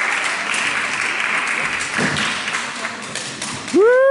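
Spectators applauding in a sports hall, the clapping slowly thinning out. Near the end comes a short, loud pitched tone that rises and then falls.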